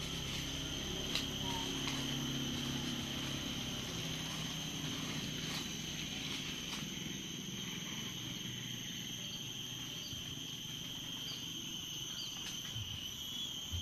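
Steady high insect chirring at two constant pitches, from crickets or cicadas, with a few faint taps. A low hum fades away in the first few seconds.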